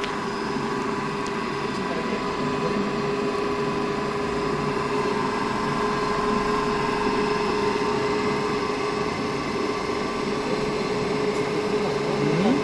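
Large electric motor running steadily at about 1,400 rpm: a constant hum with a steady whine over it. A short rising tone sounds near the end.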